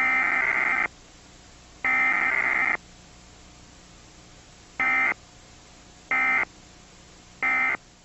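Emergency Alert System digital data bursts: a buzzy, warbling two-tone screech. Two bursts of about a second come at the start and about two seconds in, then three short bursts spaced about 1.3 s apart, the short ones being the end-of-message code. A faint low hum sits between the bursts.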